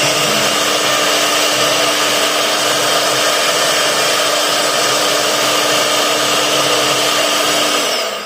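CNC router machine running: a loud, steady whirring hiss with a few steady humming tones in it, which falls away sharply near the end.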